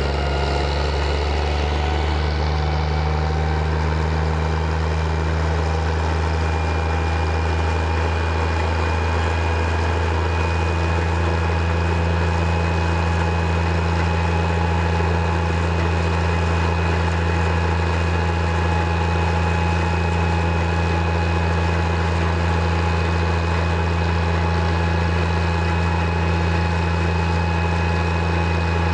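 Engine of a cable-logging yarder (donkey engine) running steadily while it winches a load along a skyline cable, with a whine whose pitch climbs slightly over the first few seconds and then holds steady.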